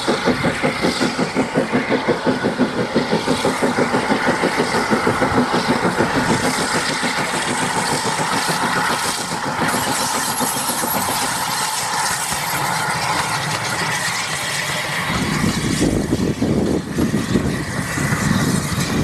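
Austerity 0-6-0 saddle tank steam locomotive working a passenger train past, its exhaust beats chuffing rapidly at about four a second. In the last few seconds the chuffing gives way to the lower rumble of the carriages rolling by on the rails.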